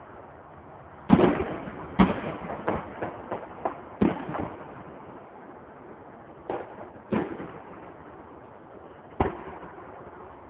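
Fireworks going off a little way off: about six sharp bangs at uneven intervals, each with a short echoing tail, the loudest two about one and two seconds in, with smaller crackling pops between them.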